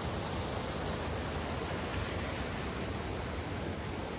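Mountain creek running high after rain and snow, rushing steadily over boulders in whitewater cascades.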